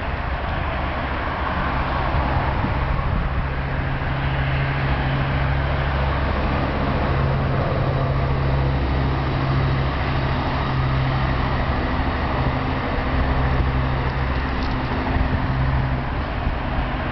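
Steady road-traffic rumble and hum, continuous and unchanging, with no barking heard.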